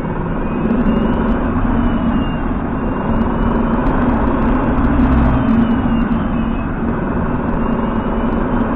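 Hyundai Ioniq Electric driving, recorded close to the drive unit: a steady rumble with a droning tone and a faint whine that rises and falls. This is the drive-shaft noise in the electric motor that turning the shaft 180 degrees did not cure; a new motor has been ordered for it.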